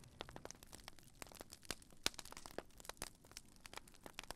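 Campfire crackling quietly, with many small irregular pops and snaps.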